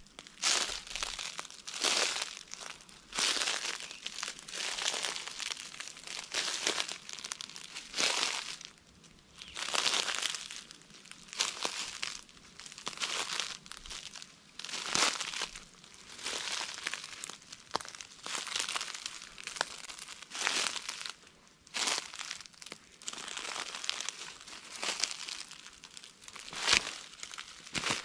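Footsteps crunching through dry fallen oak leaves, a step about every second.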